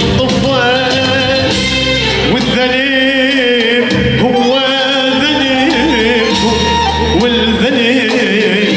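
A man singing an Arabic song in wavering, ornamented vocal lines over steady instrumental accompaniment.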